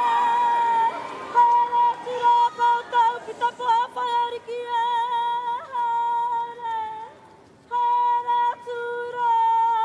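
A woman's karanga, the solo high-pitched Māori ceremonial call: long held notes that waver and fall away at the ends of phrases, with short breaks for breath, the longest about seven seconds in.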